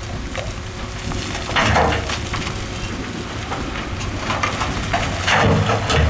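Heavy construction machinery working rock and soil: a diesel engine under load with gravelly crunching and rattling of stones, in two louder surges, about one and a half seconds in and again about five seconds in.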